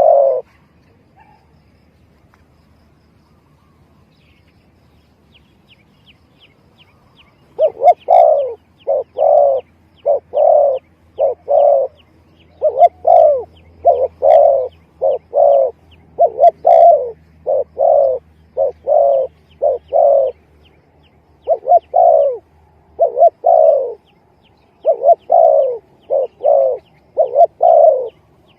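Spotted dove cooing: after about seven seconds of quiet, a long run of short, low coo notes in quick groups, repeated as a lure call. A faint rapid high-pitched ticking runs above the coos at times.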